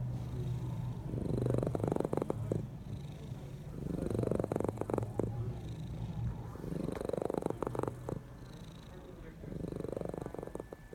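Domestic cat purring loudly with a rough, snore-like rumble that swells and fades with each breath, about every three seconds.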